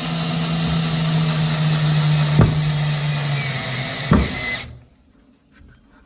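Power drill driving a screw into wood framing, its motor running steadily and dropping in pitch as it loads up. There are two sharp clicks, and the drill cuts off suddenly about three-quarters of the way through.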